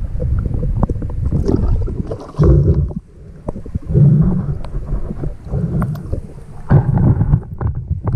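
Water sloshing and splashing around a camera going from underwater to the surface, with muffled underwater rumbling and several loud surges, as a speared fish is lifted out and splashes at the surface.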